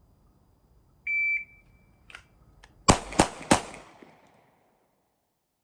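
A shot timer beeps once. About two seconds later a rifle fires three quick shots, roughly a third of a second apart, each leaving a short ringing echo.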